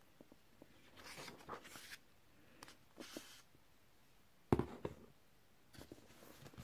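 Quiet handling noises of a paperback book being opened and its pages leafed: soft paper rustles and small clicks, with one sharper knock about four and a half seconds in.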